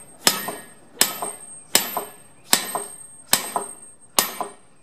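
An 8-pound hammer striking steel wheel studs to drive them home into a bus wheel hub: six blows, about one every 0.8 seconds, each with a short metallic ring.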